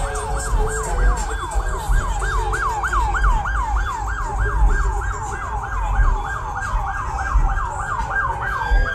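Police car siren in fast yelp mode, a rapid falling sweep repeating about three times a second, which holds on a steady high tone near the end. Low engine rumble from slow-rolling cruise cars runs underneath.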